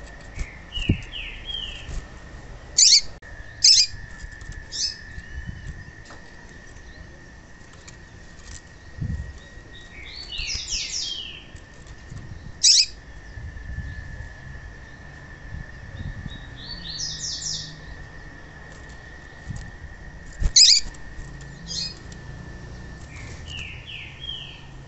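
Female papa-capim (seedeater) calling: single sharp high chirps now and then, and short runs of three to five quick falling notes, with a few light thumps of the bird moving in its cage. A faint steady high tone runs underneath.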